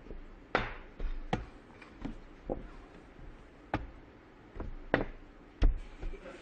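About ten sharp knocks and taps on a tabletop at irregular spacing as a small metal mug is handled and set down.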